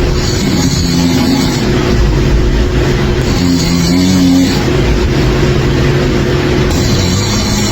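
A person snoring loudly, each breath drawing a rough, rumbling snore, in repeated cycles a few seconds apart.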